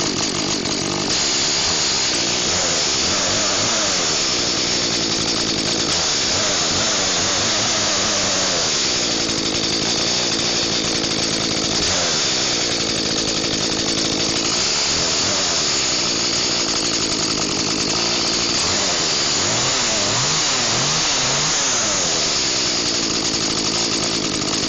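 Echo two-stroke chainsaw engine running on its own after a start, its speed wavering up and down.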